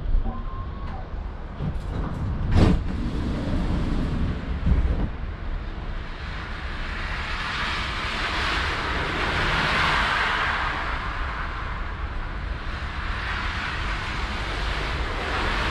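Tram running noise: a few sharp knocks in the first three seconds, the loudest about two and a half seconds in, then a steady rushing noise that swells toward the middle and eases off again.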